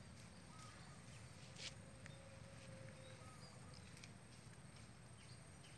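Near silence: faint outdoor ambience with a few brief, faint bird chirps and one soft click about one and a half seconds in.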